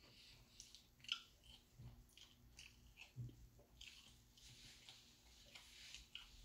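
Near silence, with faint scattered mouth sounds and soft clicks.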